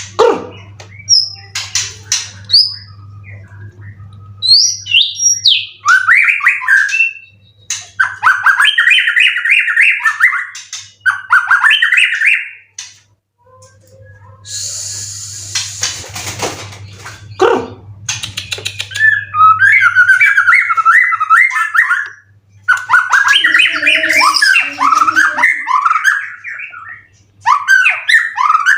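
White-rumped shama (murai batu) singing loudly in a string of varied phrases with rapid trills and high whistles, broken by short pauses. A short burst of rustling noise comes about halfway through.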